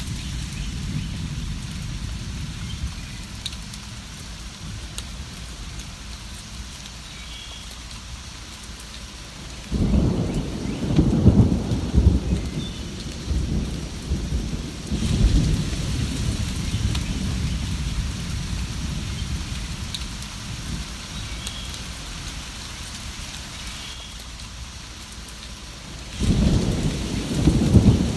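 Steady rain falling, with a long low roll of thunder starting about ten seconds in and another near the end.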